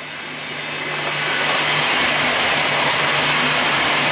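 V/Line VLocity diesel multiple unit approaching and passing at speed. Wheel and rail noise grows louder over the first second and a half, then holds steady, with a low diesel engine hum underneath.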